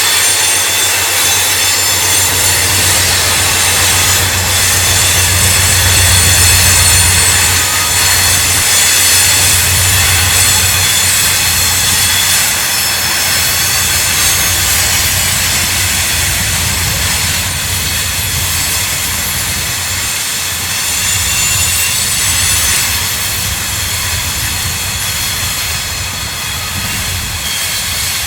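Freight cars rolling past, with a steady low rumble of wheels on rail and a shrill squeal of wheel flanges on a curve, easing a little near the end.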